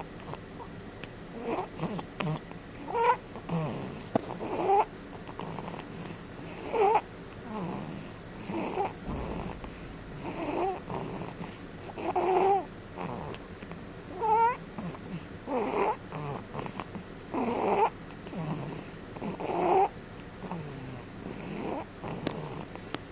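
Snoring: a steady run of breaths, each with a pitched, wavering whistle, the louder ones about every two seconds with softer breaths between.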